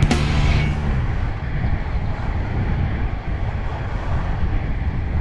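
Wind rushing over the microphone with the rumble of inline skate wheels rolling fast downhill on rough asphalt. A click right at the start, and background music that fades out within the first second.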